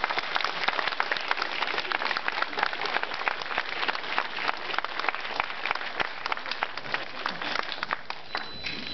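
Audience applauding: many people clapping at once, dense at first and thinning out near the end.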